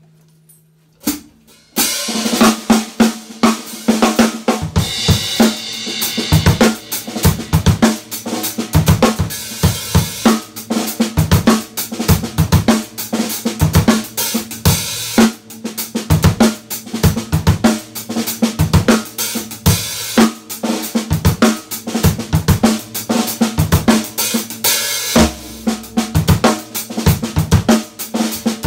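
An acoustic drum kit played in a steady groove: bass drum, snare and cymbals struck with sticks. After a single sharp hit about a second in, the groove starts about two seconds in.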